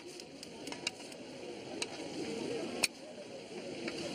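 Metal spatulas scraping and clanking against a large steel pan as sauced fried chicken is tossed, with sharp clinks now and then and one loud clank nearly three seconds in.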